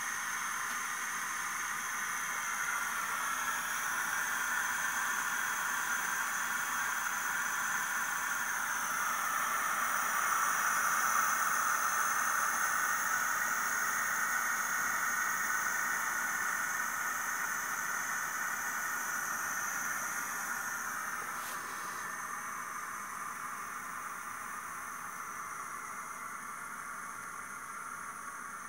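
Cuchen electric pressure rice cooker hissing as it vents steam through the valve on its lid, releasing pressure near the end of the cook. The hiss swells to its loudest around the middle, then tapers off, with a single faint click about two-thirds through.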